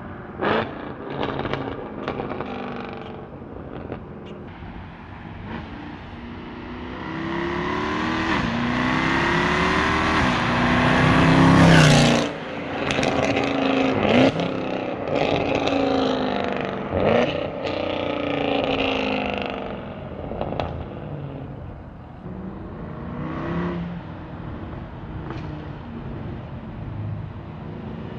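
Mercedes C63 AMG V8 through catless long-tube headers, resonator delete and X-pipe, pulling under throttle at low revs. The engine note climbs steadily for several seconds to its loudest point about twelve seconds in, then drops off abruptly. A few shorter pulls follow, each ending in a quick fall in pitch.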